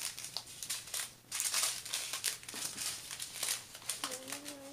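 Small clear plastic bags of diamond-painting drills crinkling as they are handled and set down on a paper sheet, in irregular crackly rustles.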